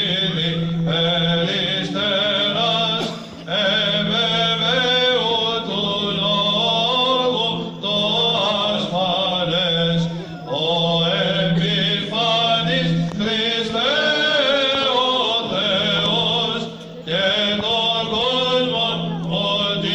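Byzantine chant by male chanters, amplified through a microphone: a melody sung in long phrases over a steady low held note (the ison). The phrases break briefly for breath a few times.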